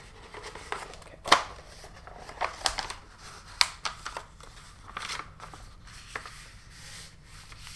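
A sheet of paper rustling and crinkling as it is slid off a glass votive holder and pressed and folded flat on a marble tabletop. Several sharp taps and knocks sound through it, the loudest about a second in and again a few seconds later.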